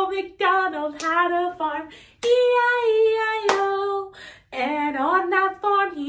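A woman singing a tune without accompaniment, holding one long note about two seconds in.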